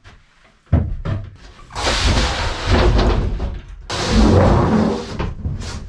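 A sharp knock about a second in, then a large sheet of plywood sliding and scraping across a wooden worktable in two long stretches.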